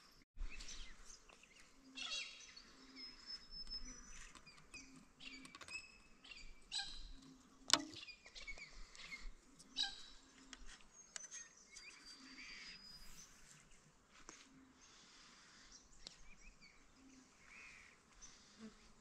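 Wild birds chirping and whistling in a scatter of short calls, with one sharp click about eight seconds in.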